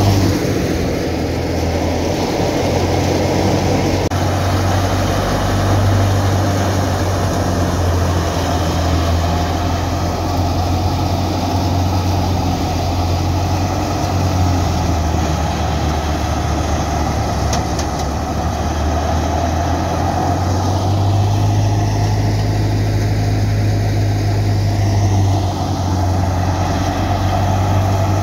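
Belarus 510 tractor's diesel engine running steadily under load, driving a wheat thresher whose drum and fan whir as it threshes wheat, with a constant low hum under the machine noise.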